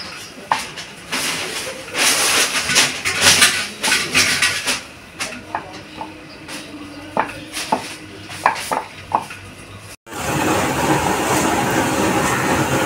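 Dough being rolled out with a wooden rolling pin on a wooden board: irregular knocks, clicks and rolling strokes. About ten seconds in, the sound changes to a steady sizzle of a flat round of luchi dough frying in hot oil in an iron karai.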